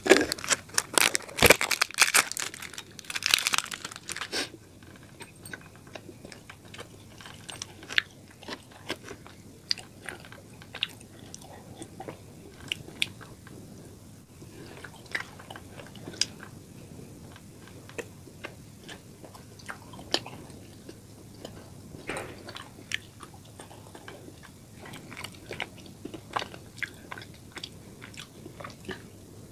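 A candy wrapper crinkling loudly for about the first four seconds, then close-miked biting and chewing of a chocolate bar with small, irregular wet mouth clicks.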